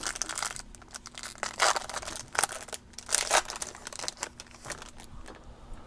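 Trading card pack wrapper being torn open and crinkled: a run of irregular crackles and ripping noises.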